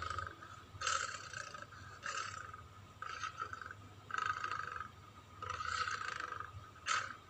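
Allosaurus dinosaur sound effect: a run of about seven short, harsh, noisy calls in quick succession, each under a second, with the longest about five and a half seconds in.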